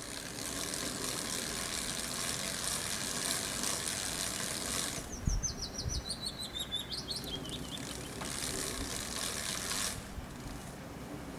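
Bird chirping played through a sound installation of lit birdhouses, over a steady high hiss. About five seconds in comes a clear run of quick chirps that step down in pitch for a couple of seconds, with two low thumps near its start.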